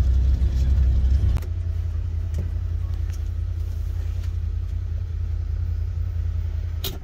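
Side-by-side UTV engine running steadily, a low rumble heard from inside the enclosed cab, with a few light clicks and knocks. The rumble drops slightly about a second and a half in.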